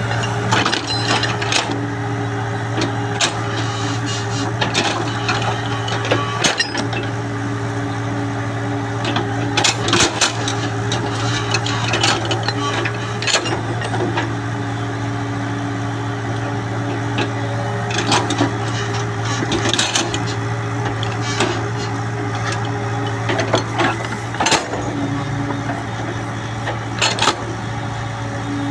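Excavator's diesel engine running steadily while it digs, with irregular clanks and knocks from the bucket and digging gear.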